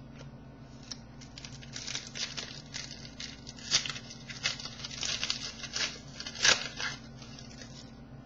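A baseball card pack wrapper torn open and crinkled by hand, in a run of irregular rustles, the loudest about four and six and a half seconds in.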